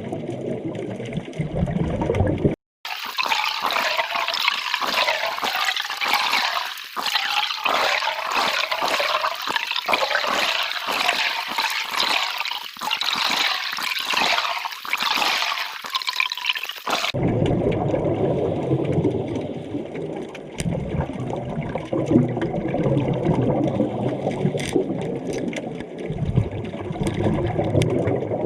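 Underwater water noise from a scuba dive, with rushing and bubbling. About three seconds in it cuts abruptly to a high hissing rush, and near the end of its second third it switches back to a low, bubbling rumble.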